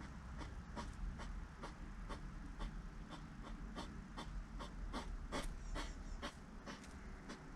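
Hedgehog chewing sunflower seeds: sharp crunching cracks about three times a second, over a low rumble.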